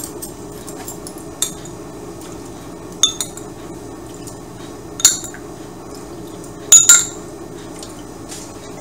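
A ring of metal measuring spoons clinking as spoonfuls of cold water are scooped and poured into a bowl of ground shrimp and pork. Short sharp clinks come about every two seconds, with a close pair near seven seconds in the loudest.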